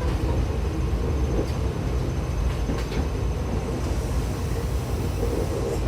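Hankyu 7000-series electric train running, heard inside the passenger car: a steady low rumble of wheels and running gear with a faint steady hum, and a few faint clicks along the way.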